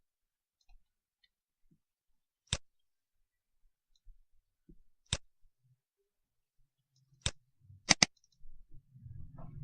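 Computer mouse clicking: single clicks a few seconds apart, then a quick double click. A low hum comes in near the end.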